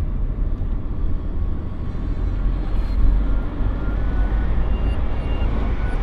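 Car cruising at about 75 km/h, heard from inside the cabin: a steady low rumble of engine and road noise.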